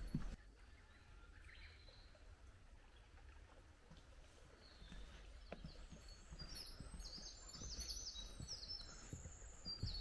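Small forest birds singing: quick, high chirping phrases that start sparsely and grow busier about halfway through.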